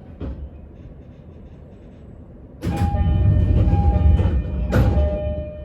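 Inside an E231-1000 series commuter train: quiet running noise, then about two and a half seconds in a sudden loud rumble and rush lasting about three seconds. It opens with a sharp crack and has another crack near the end, with two ringing pitches taking turns over it.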